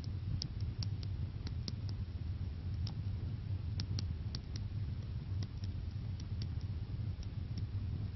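Stylus tapping and clicking on a tablet screen during handwriting: irregular sharp clicks over a steady low electrical hum.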